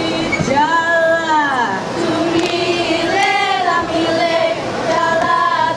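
Young girls singing a melody together, their voices held and sliding through long drawn-out notes, with a lead singer on a microphone, accompanying a seated Indonesian group dance.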